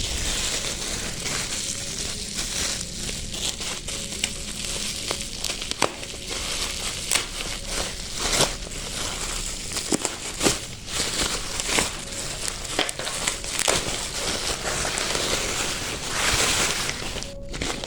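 Plastic packaging crinkling and rustling as it is handled and unwrapped, with many sharp crackles throughout.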